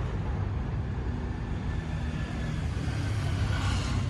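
Steady low rumble of city street traffic, with a brief swell of hiss near the end.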